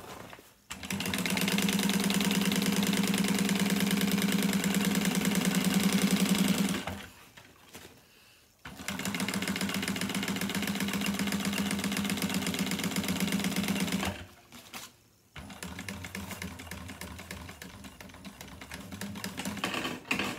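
Juki industrial sewing machine stitching webbing onto sailcloth in three runs of rapid, even stitches over a steady motor hum, with brief stops between. The last run, after the second stop, is quieter.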